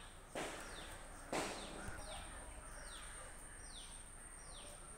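A bird calling outdoors, repeating a short falling whistle about once a second from about two seconds in, over a faint steady high whine. Two sharp clicks or rustles come in the first second and a half.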